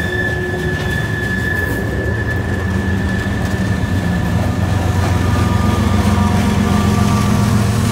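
Loaded freight cars rolling past on the rails, a wheel squeal fading out early on. From about five seconds in, the low running hum of a diesel locomotive grows louder as it draws alongside.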